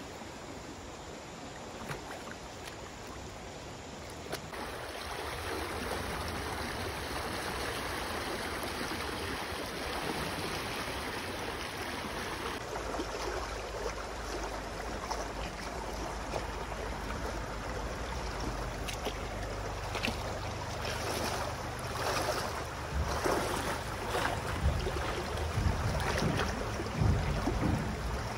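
Flood-swollen river water flowing steadily. Partway through it changes to shallow water running over a stony bed, and in the last several seconds there is irregular splashing as a person wades through it.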